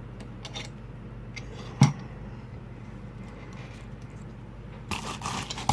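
Lock pick and tension wrench working in a padlock's keyway: faint metallic ticks and scraping, a sharp knock about two seconds in, and a short burst of scraping clicks near the end. A steady low hum runs underneath.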